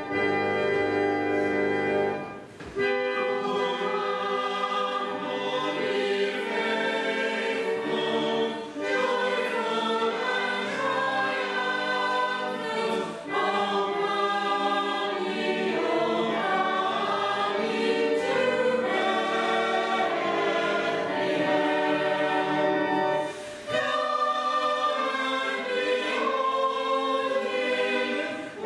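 A small mixed church choir singing a Christmas carol, with a few short breaks between phrases. It opens on a held organ chord that stops about two seconds in before the voices come in.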